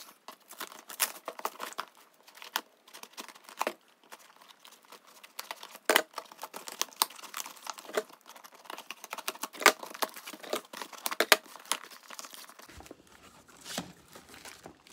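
Packaging being torn open and unwrapped by hand: irregular crinkling and tearing with many sharp crackles and snaps.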